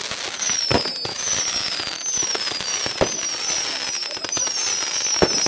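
New Year's Eve fireworks: a quick run of overlapping falling whistles from whistling fireworks over steady crackling, with three sharp bangs about two seconds apart.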